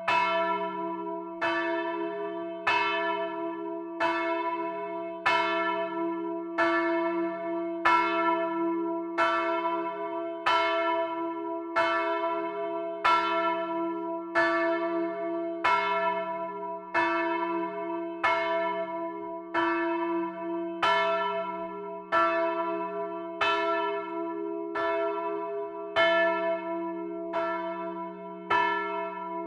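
Swinging church bell ringing in an even peal, its clapper striking about every 1.3 seconds. Its deep hum carries on between the strokes.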